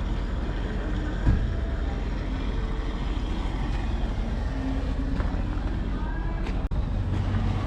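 Steady low vehicle rumble with a single thump about a second in.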